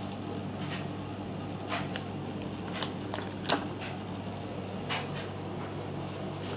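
Steady low hum of a running desktop PC, with about half a dozen irregular clicks and taps over it, the sharpest about three and a half seconds in.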